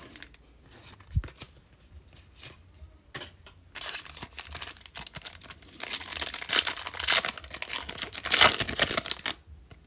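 A trading card pack's wrapper being torn open and crinkled. After a few soft handling clicks, the crackling tearing starts about four seconds in, grows louder and stops shortly before the end.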